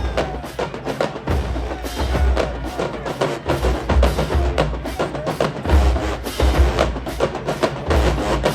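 Marching band drum section playing a fast percussion cadence: crisp, rapid snare and rim strikes over heavy bass drum hits.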